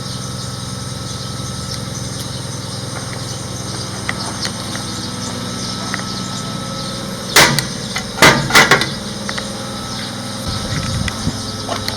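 A motor or engine running steadily in the background, a constant low hum. About seven seconds in, a quick cluster of three or four loud knocks or clatters.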